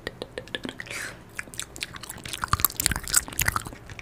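Close-mic ASMR mouth sounds: wet lip and tongue clicks and smacks imitating biting and chewing. They come thicker and louder a little past halfway.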